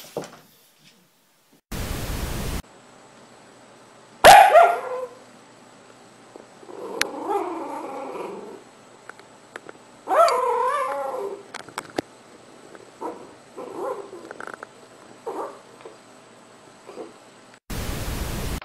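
A sleeping puppy barking and yipping in its sleep: one loud sharp bark, then two longer wavering calls and several short quieter yips. Short bursts of TV-static hiss come about two seconds in and at the end.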